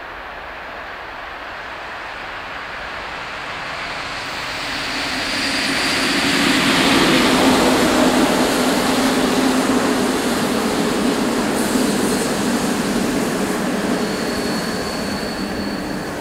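Electric locomotive-hauled passenger train passing through a station: the running noise grows steadily louder as it approaches, is loudest about seven seconds in as the coaches go by, then slowly fades. A faint high wheel squeal is heard briefly about five seconds in and again near the end.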